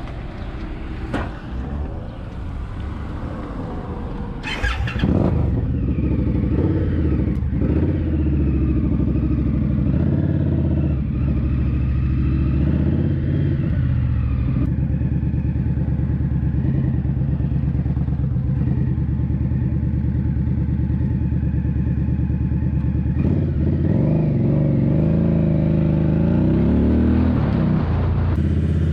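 Indian Scout Bobber's V-twin engine starting about five seconds in and then running steadily, its pitch rising and falling near the end as the throttle changes.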